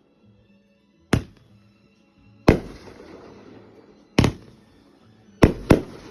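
Fireworks going off: five sharp bangs, each trailing off in a short echo, the last two in quick succession.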